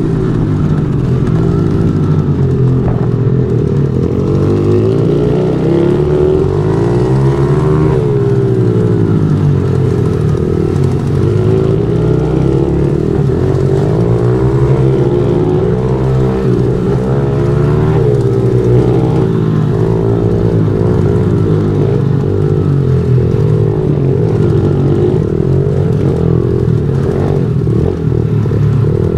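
Small pit bike engine running hard, its pitch rising and falling over and over as the throttle is opened and closed while riding a dirt trail.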